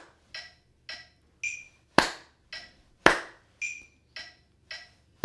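Metronome app ticking at about 110 beats per minute, with a higher-pitched accented click on beat one of every four. Hand claps land on beats two and four, three claps in all: about two seconds in, about three seconds in, and at the very end.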